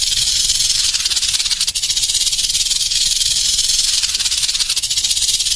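Snake sound effect: a loud, steady hiss.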